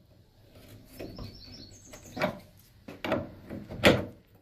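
Three sharp knocks, about a second apart, with the last the loudest. About a second in there is a short run of high bird chirps.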